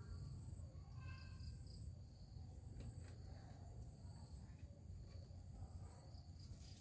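Faint insects trilling at high pitch, coming and going, over a low steady rumble.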